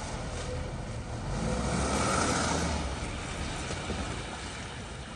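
A vehicle passing, its noisy rush swelling to a peak about two seconds in, then fading.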